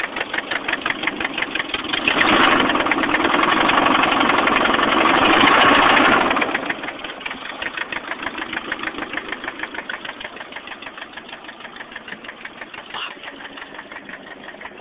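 Nissan KA24E 2.4-litre four-cylinder engine running with a fast, even ticking knock. It gets louder for about four seconds, as when the engine is revved, then drops back to idle with the ticks still there. The owner can't tell whether the noise is rod knock or lifters that need bleeding, after a head rebuild that followed overheating.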